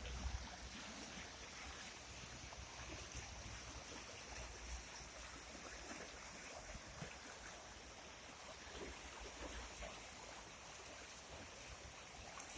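Steady rushing of a mountain river, a faint even wash of water noise, with a low rumble underneath that comes and goes.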